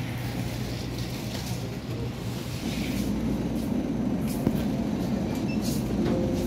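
Steady background noise of a grocery shop: a constant low hum with a denser rumble from about three seconds in, and a few faint clicks.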